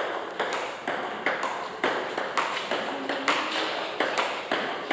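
Table tennis ball being struck with a paddle in a steady practice rhythm: a sharp tock about twice a second, each with a short ring.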